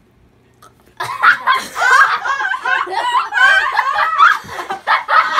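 Girls laughing, with several voices overlapping; the laughter starts suddenly about a second in after a near-quiet pause.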